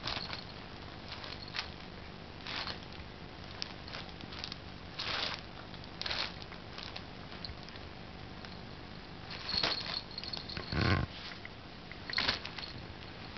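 A kitten rustling and crinkling a nylon cat play tunnel in short bursts as it pounces and burrows, with a small collar bell jingling lightly now and then. The loudest rustle, with a soft thump, comes about eleven seconds in as it dives into the tunnel.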